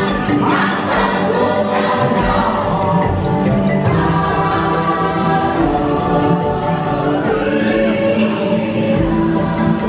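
Music with a choir singing: many voices holding long notes together over a steady backing.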